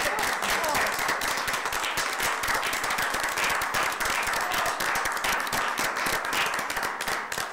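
Applause: many hands clapping steadily, starting to die down near the end.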